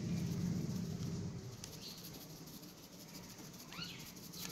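Quiet outdoor background: a low steady hum, louder in the first second or so, and one short high chirp that rises and falls near the end.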